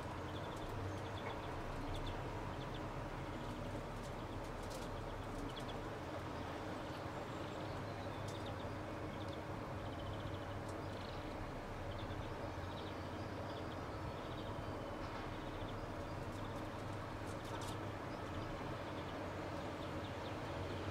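Outdoor ambience: a steady low rumble with small birds chirping again and again, and a few faint clicks.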